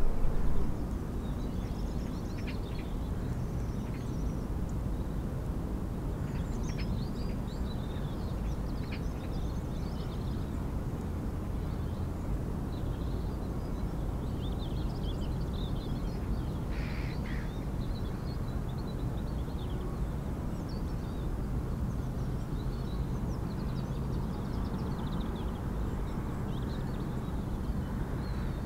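Outdoor countryside ambience: birds calling and chirping in short, scattered bursts over a steady low rumble.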